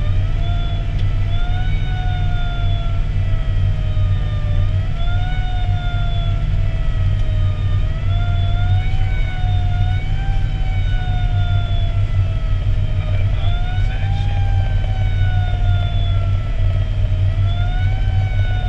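Fire engine's siren wailing, each rise in pitch quick and each fall slow, repeating about every four seconds. It is heard from inside the cab over the truck's loud, steady low drone.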